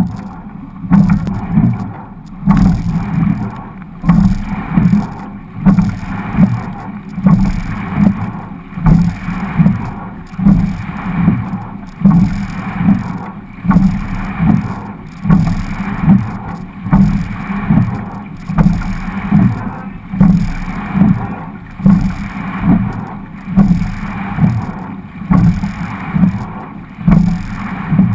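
Quad scull being rowed hard: a loud knock and surge with each stroke, about forty strokes a minute, over a steady rush of water along the hull.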